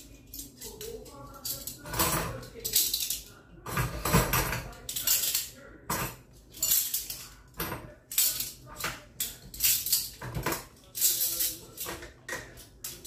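Metal cutlery and dishes clinking and clattering as they are wiped with a cloth and set into a plastic dish rack, in irregular bursts every half second or so.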